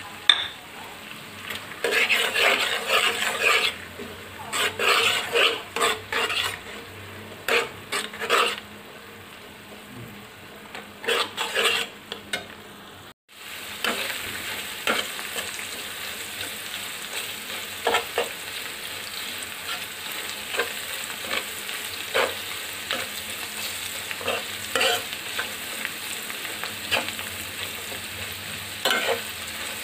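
Egg, chopped onions and green chillies frying in hot oil in a pan, sizzling while they are stirred and scraped around the pan in bursts of strokes. After a brief break about 13 seconds in, a steadier sizzle continues with single scrapes every second or two.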